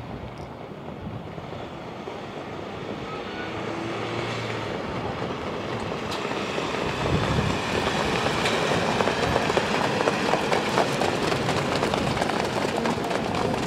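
Hoofbeats of a field of trotters and the rattle of their sulkies on a dirt track, growing louder as they approach, turning into a dense, fast clatter from about seven seconds in.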